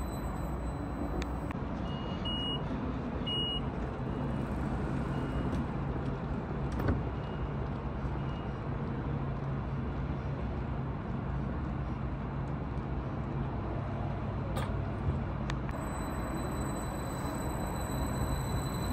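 Steady low drone of a double-deck SBB electric commuter train (Stadler KISS type) standing at the platform, its fans and converters running. Two short high beeps come about two and a half and three and a half seconds in, and a single knock near seven seconds.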